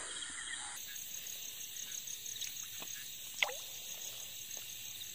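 Night chorus of frogs and insects, with a high chirp pulsing evenly about five times a second. A single sharp click comes a little past the middle.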